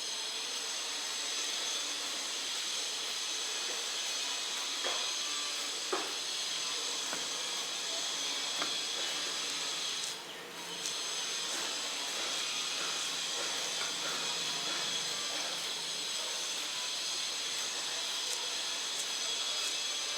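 Sabudana vadas deep-frying in hot oil, a steady sizzling hiss with a few light clicks; the sizzle dips briefly about ten seconds in.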